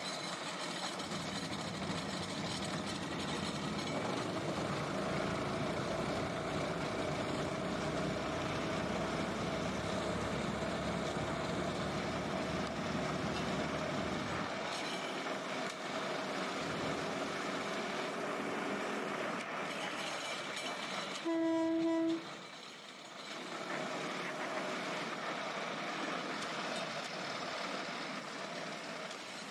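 Small motorized rail speeder running along old rails, a steady mix of engine and wheel-on-rail noise. About two-thirds of the way through, one short horn honk at a single pitch, after which the running noise is quieter.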